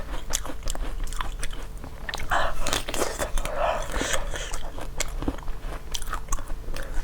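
Close-miked crunchy biting and chewing of frozen star fruit, a quick run of crisp crackling crunches.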